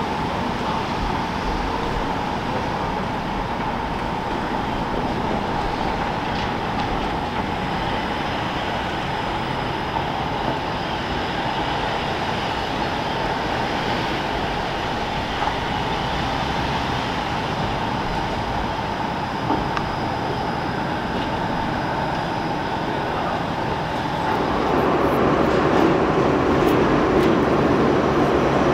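TTC Bombardier Flexity Outlook streetcar running on street track: a steady rail-and-traffic sound with a faint steady tone. About 24 seconds in, it becomes louder and fuller, with a streetcar moving through an underground station loop.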